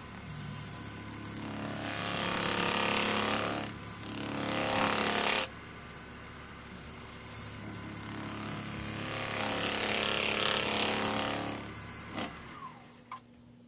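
Wood lathe running with a heart-shaped ash bowl spinning on it, a steady hum, while a hand-held pad pressed against the spinning wood makes two long hissing rushes, the first cutting off abruptly. The lathe then winds down and the hum stops near the end.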